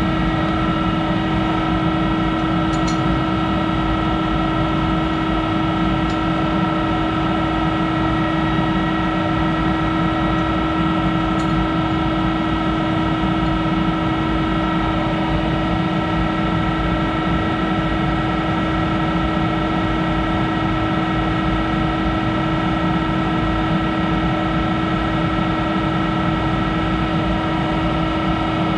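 Monarch 10EE lathe's electric drive humming steadily with the spindle stopped, several fixed tones held without change. A few faint metallic clicks come from the chuck key as the aluminum stock is clamped in the three-jaw chuck.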